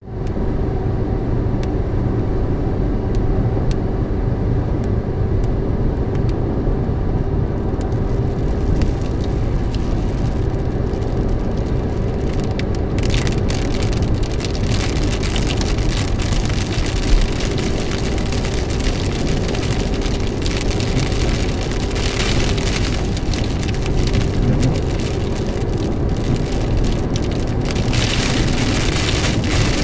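Car driving on a highway, heard from inside the cabin: steady engine and tyre rumble. Scattered raindrops tick on the car at first, grow thicker after about thirteen seconds, and turn into heavy rain near the end as a thunderstorm arrives.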